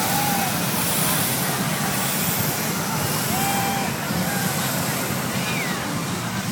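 Hot air balloon propane burners firing, a steady rushing blast of noise, with a crowd's voices faintly underneath.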